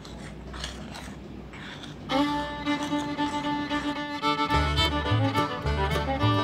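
Faint clicks and knocks, then about two seconds in background music starts: a fiddle-led tune with a bass line coming in partway through.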